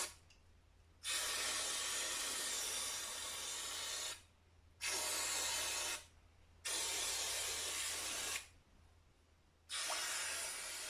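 Pressurised spray hissing in four long bursts with short pauses between them, flushing dirty old oil and debris out of the inside of a Briggs & Stratton 17.5 HP engine.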